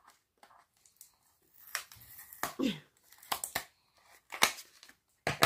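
Small packaging being handled and opened: irregular rustling and crinkling with sharp little clicks, loudest toward the end.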